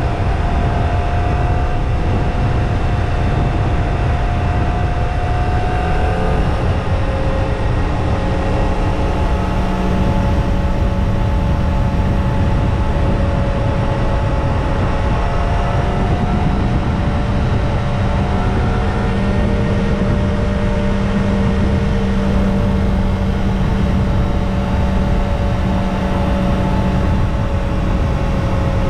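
Kawasaki ZX-25R's 250 cc inline-four on its stock exhaust, running at a fairly steady speed while riding, its pitch drifting slowly up and down, over a dense low rush.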